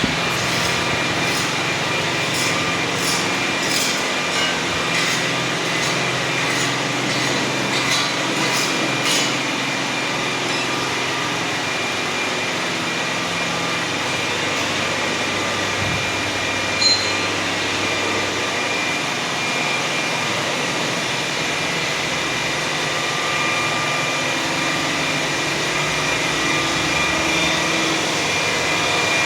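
WMW Union BFK 110 CNC horizontal boring machine running, a steady mechanical whine with several held tones. A run of light clicks comes in the first nine seconds, and a single short sharp sound about seventeen seconds in.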